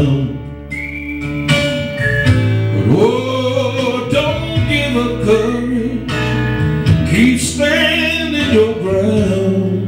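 A man singing a gospel song into a microphone over live instrumental backing, amplified through the church's sound system.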